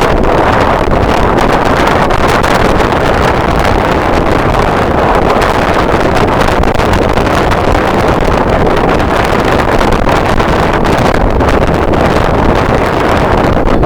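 Strong wind buffeting the camera microphone: a loud, steady rushing noise with no let-up.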